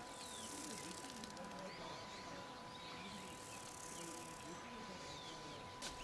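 Faint bush ambience: scattered short bird chirps and whistles over a low wavering murmur like distant voices, with a steady thin tone throughout and a sharp click near the end.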